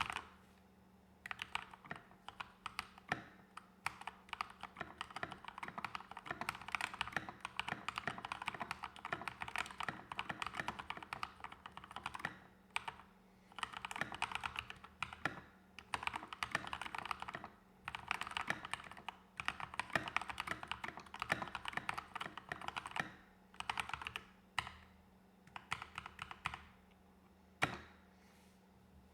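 Typing on an Epomaker GK61X 60% keyboard fitted with Akko CS Rose Red linear switches and HyperX Pudding keycaps: fast runs of key clacks in bursts of several seconds, broken by short pauses.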